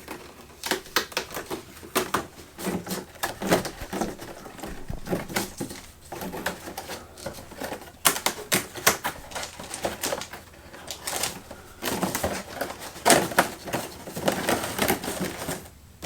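Corrugated cardboard being handled, with fingers rubbing and pressing along a taped seam: a run of irregular dry clicks and crackles.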